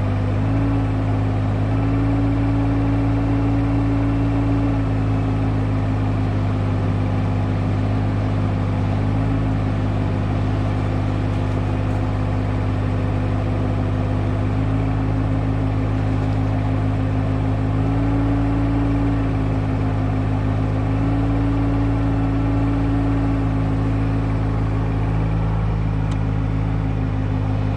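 IHI 20NX mini excavator's diesel engine running steadily, its pitch lifting slightly a few times as the hydraulics take load while digging.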